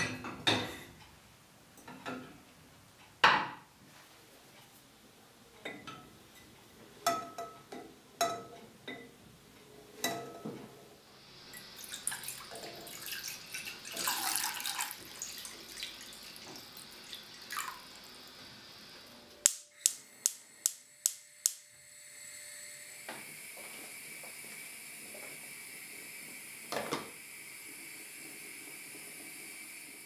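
A pot and eggs being handled on a gas hob, with scattered knocks and clinks, then water pouring into the pot for several seconds. After that, a gas hob igniter clicks about six times in quick succession and the lit burner settles into a steady hiss.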